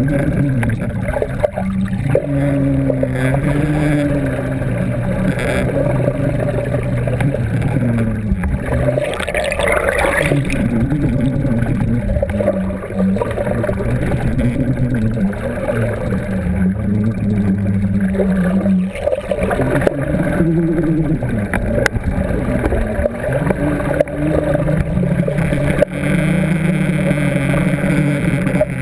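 Underwater sound beside a sailing schooner's hull as it moves at about 2.5 knots: water rushing past the submerged camera, with a low hum that wavers slowly in pitch throughout.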